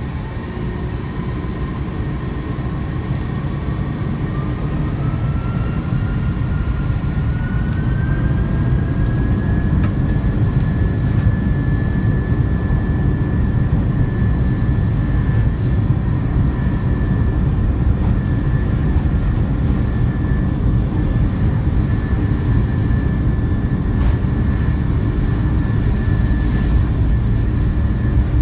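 Airbus A330-300 airliner's twin jet engines spooling up to takeoff thrust: a whine rises in pitch over the first ten seconds or so and then holds steady, over a deep rumble that grows louder.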